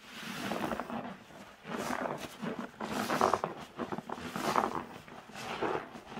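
Soap-soaked yellow grout sponges squeezed in gloved hands, the foam squelching with a crunchy crackle, about five squeezes with short pauses between.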